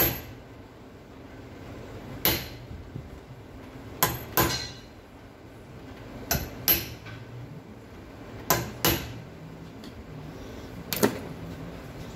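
Hammer strikes on a metal part held in a bench vise: about nine sharp, ringing knocks, mostly in quick pairs about two seconds apart.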